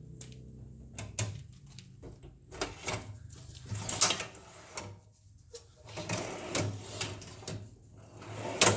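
A drawer being set onto its rails under a lathe and slid into place: a string of irregular clicks, knocks and scrapes, with the sharpest knocks about four seconds in and near the end.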